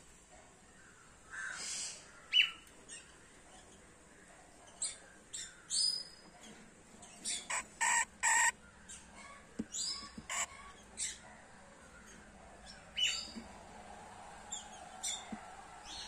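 Small caged parrots calling: short, sharp, high-pitched chirps and squawks at irregular intervals, with a loud cluster of calls about seven to eight and a half seconds in.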